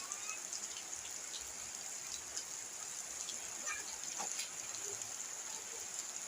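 Steady rain falling, an even hiss with scattered drips.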